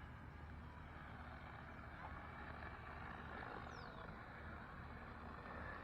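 Faint, steady whine of a small foam RC plane's electric motor and propeller, heard at a distance.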